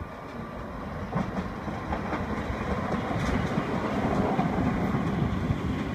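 A Breda light rail vehicle approaches and passes beneath, its wheels rumbling on the rails and growing louder, with a few faint clicks about a second apart. It is loudest about four to five seconds in, then begins to fade.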